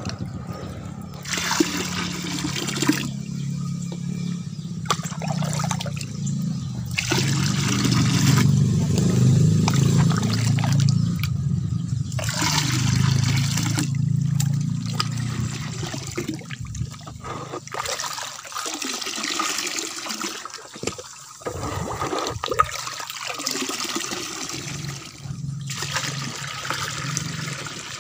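Watery fertilizer mixture sloshing and splashing in a plastic tub as it is stirred and scooped by hand, in repeated bursts of splashing and pouring. A low steady hum runs under the first half and fades out.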